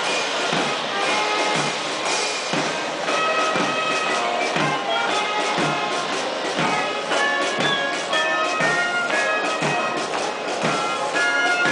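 Band music with brass instruments playing a melody over a steady drum beat, about one thump a second.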